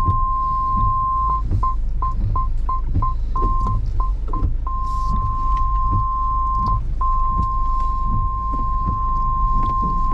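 A car's parking-sensor obstacle warning: a steady high beep tone that breaks into quick beeps, about three a second, for a few seconds, then holds steady again. It is set off by brush and branches close around the vehicle. Under it is the low rumble of the slow-moving vehicle, with scattered ticks.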